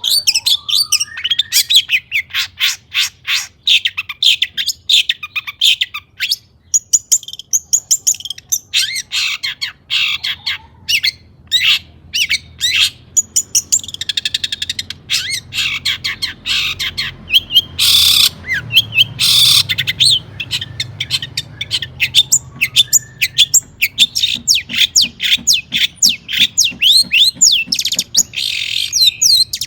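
Long-tailed shrike (cendet) singing a fast, continuous song of rapid chirps and quick gliding whistled notes. About two-thirds of the way through come two short, harsh rasping calls.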